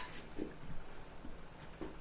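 Quiet room with faint, soft handling and movement noises.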